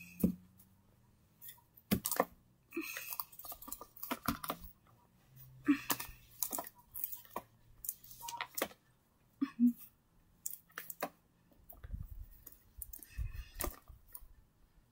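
Irregular clicks, taps and short rustles as plush toys are handled and set down on a carpet, with a low rumble of handling about twelve seconds in.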